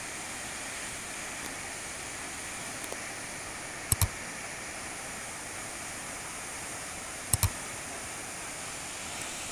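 Steady rushing of a waterfall. Two quick double clicks, about four seconds and seven seconds in, from a subscribe-button animation's cursor click.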